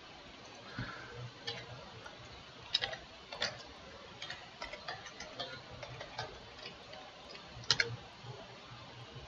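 Computer keyboard and mouse clicking: scattered, irregular light clicks, with the sharpest ones about a third of the way in and near the end.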